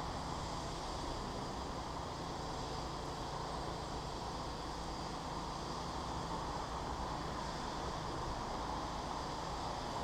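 Steady, even hum of distant city road traffic, with no distinct events.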